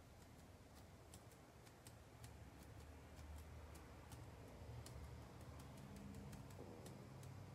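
Near silence: faint, irregular small clicks, one or two a second, over a low steady hum.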